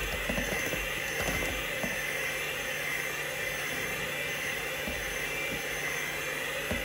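Polaris electric hand mixer running steadily, its beaters churning thick dough in a stainless steel bowl.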